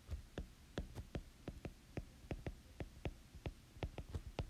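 Stylus tip clicking against a tablet's glass screen while hand-printing block letters: an irregular run of sharp little clicks, about four or five a second.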